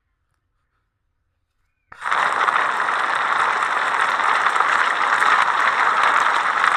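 Fire sound effect: a steady, dense crackling that starts suddenly about two seconds in after silence.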